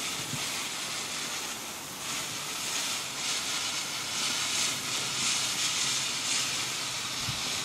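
Firework fountain burning, a steady fizzing hiss of spraying sparks that gets slightly louder about three seconds in.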